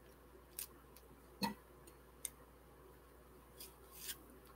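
Faint short scrapes of a Y-shaped vegetable peeler drawing strips of skin off a papaya: about five strokes, the one about one and a half seconds in the loudest.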